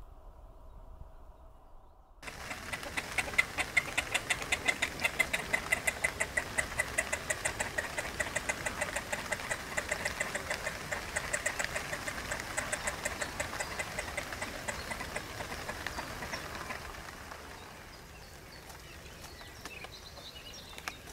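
Great crested grebe calling: a long, rapid run of repeated notes that starts abruptly a couple of seconds in, keeps up an even rhythm, and fades out after about fifteen seconds.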